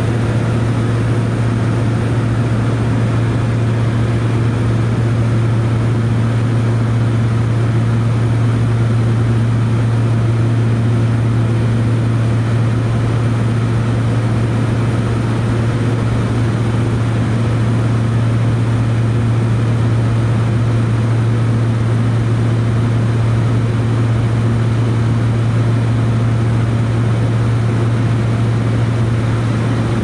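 Steady cabin drone of a de Havilland Canada DHC-6-300 Twin Otter's twin PT6A turboprop engines and propellers in level cruise, heard from inside the cabin: a loud, even engine noise with a strong low hum.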